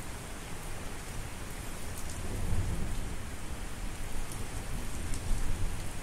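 Steady rain hissing, with low thunder rumbling under it that swells about two seconds in and again near the end.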